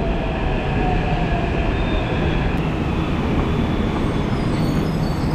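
Hyderabad Metro electric train running: a steady, continuous rail noise with faint thin whining tones that become more noticeable near the end.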